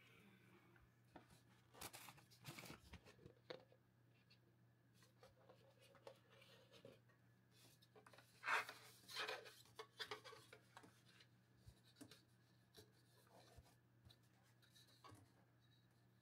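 Faint handling of a 3D printed plastic cyclone separator being lifted off its jar and taken apart: scattered soft clicks and rubs, the loudest pair about halfway through, over a faint steady low hum.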